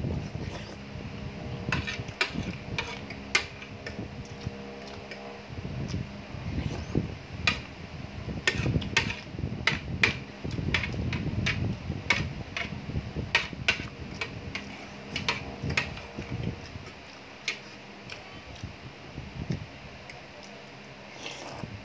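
Metal spoon and fork clinking and scraping against a ceramic plate in irregular clicks, fewer towards the end, with chewing of pasta and meat up close. A steady low hum lies underneath.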